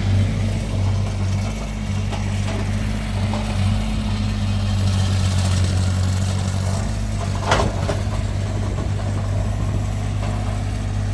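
Heavy vehicle engine idling steadily, a low even hum, with one short sharper noise about seven and a half seconds in.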